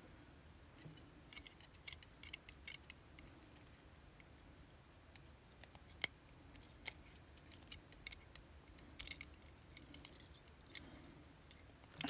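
Faint, irregular metallic clicks and taps of small tools against the pins and parts of a disassembled lock cylinder as a stuck pin is worked out, with one sharper click about halfway through.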